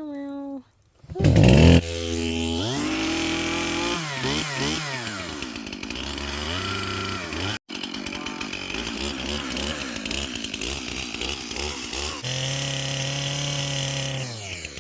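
Chainsaw running, its engine revving up and down over and over, loudest just after it starts about a second in and cutting out for an instant near the middle.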